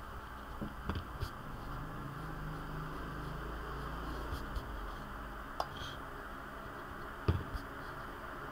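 Pencil drawing on paper: a few faint taps and scrapes, the loudest a pair about a second in and one near the end, over a steady hiss.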